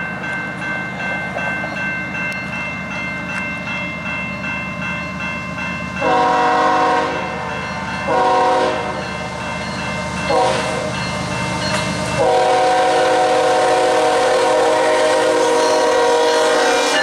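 Diesel freight locomotive's multi-note air horn sounding the level-crossing signal: long, short, short, then a long blast held to the end. Underneath, the crossing bell rings steadily, and the locomotive's rumble builds as it approaches.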